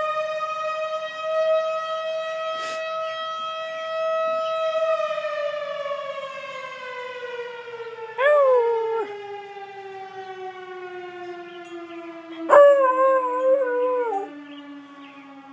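A fire siren wails steadily, then winds down, falling slowly in pitch through the second half. A Bluetick coonhound howls along twice, a short howl about halfway through and a longer, wavering howl near the end.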